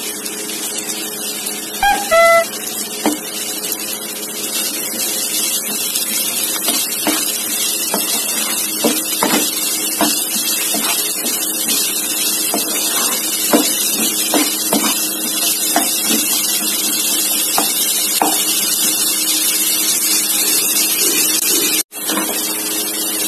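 Chopped onions sizzling steadily in hot oil in a frying pan as they fry towards golden brown, with scattered light scrapes and taps of a spatula stirring them.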